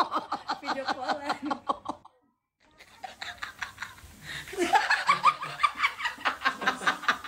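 Hearty laughter in quick, rhythmic bursts. It breaks off about two seconds in, there is a moment of silence, and then the laughing starts again and carries on.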